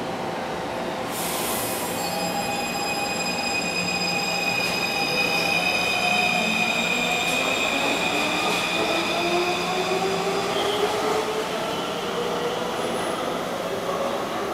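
Taipei Metro C341 train's Siemens IGBT-VVVF traction inverters and motors whining as it pulls out and accelerates, the whine rising steadily in pitch. Several high steady tones sound over it from about a second in and fade after about ten seconds, under the rolling noise of the departing train.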